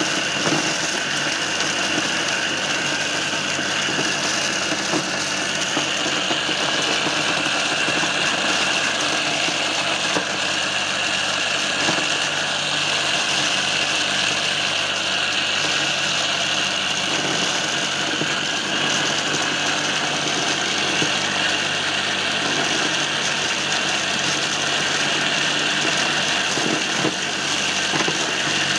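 Homemade mini corn sheller running and shelling cobs fed into its chute, driven by a belt from an electric motor salvaged from a water pump. It runs steadily, with a constant high whine and a few faint clicks.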